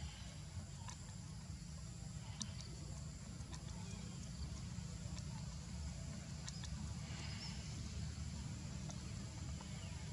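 Outdoor forest ambience: a steady low rumble with a faint hiss, and scattered short, high chirps and ticks now and then, with one softer, longer high sound about seven seconds in.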